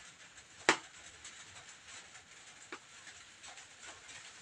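Light rustling and small ticks of fingers handling a LAN cable's untwisted wires, with one sharp click about a second in and a softer one near three seconds.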